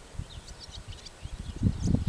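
Small birds chirping in short, high calls, with a few low, dull thuds near the end.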